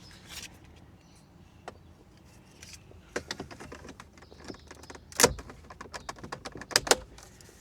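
Plastic car interior trim being worked and pushed into place: scattered light clicks and rattles, with a sharp snap about five seconds in and two more near the end.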